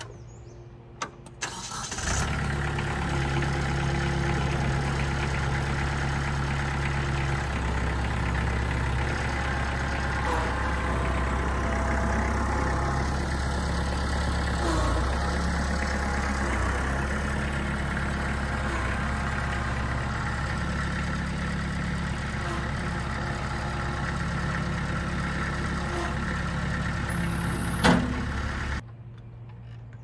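Kubota compact tractor's diesel engine started about two seconds in, after a couple of clicks, then running steadily at low speed while the tractor is driven. It is shut off near the end, cutting out suddenly just after a brief loud burst.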